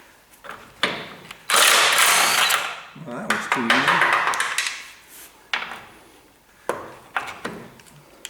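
Workshop tool sounds on a car chassis: sharp knocks of metal tools, and a loud burst from a power or air tool lasting about a second and a half, starting about a second and a half in.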